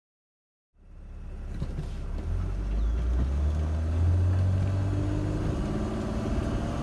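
Mercedes Sprinter's OM642 3.0 V6 turbo-diesel engine running, cutting in suddenly about a second in with a low, steady drone that grows louder around two seconds in. The van has a failing variable-geometry turbo actuator causing loss of power.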